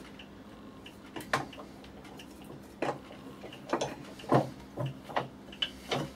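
A block of green sandalwood being set into a metal bench vise and clamped: a series of separate knocks and clanks as the wood meets the jaws and the vise handle is turned. A faint, even ticking runs underneath.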